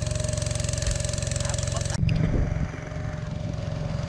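Small wooden boat's engine running steadily under way. About two seconds in the sound changes abruptly, and uneven low rumbling like wind on the microphone joins the engine after that.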